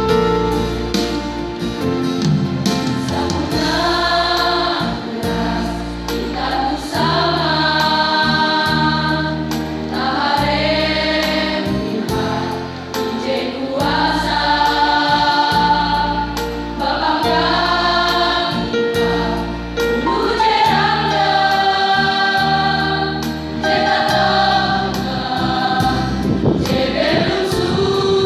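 Large high-school choir singing a song together, with a low instrumental accompaniment sustaining notes beneath the voices.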